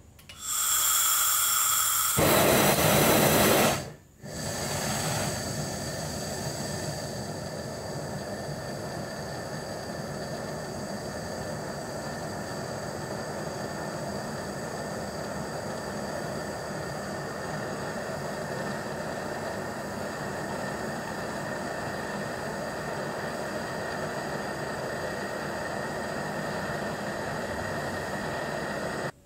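Hand-held gas torch on a canister: a louder rush of gas for the first few seconds that drops out briefly, then the flame burning with a steady hiss.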